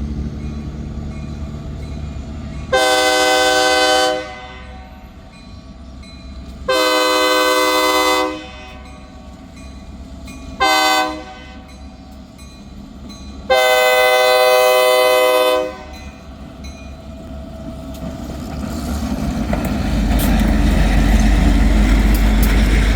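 Diesel locomotive's air horn sounding the grade-crossing signal: two long blasts, one short, one long, each a chord of several steady notes. After the last blast a train's low rumble grows louder as the train approaches.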